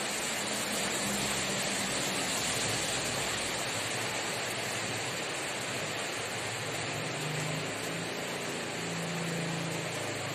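Steady rain falling on standing water and leaves: an even hiss of many drops.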